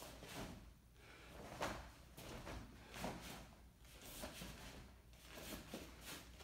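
Faint movement sounds of a martial artist working through a Tang Soo Do form barefoot on foam mats: a series of brief swishes and soft thuds from the uniform snapping with strikes and bare feet stepping, the loudest about one and a half seconds in.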